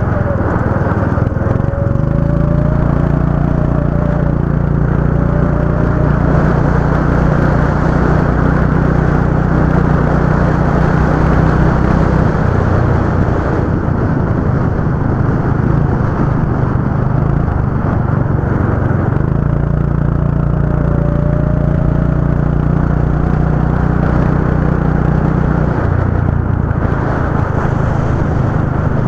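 Go-kart engine running continuously under throttle, its note changing several times as the kart accelerates and lifts off, with a thin rising whine about a second in and again about two-thirds of the way through.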